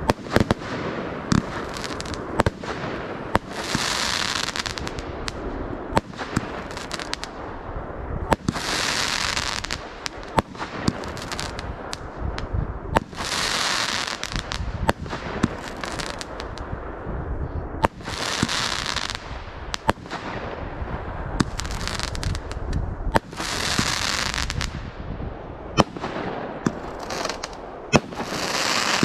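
Fireworks display: a steady run of sharp bangs, with a hissing, crackling burst about every five seconds.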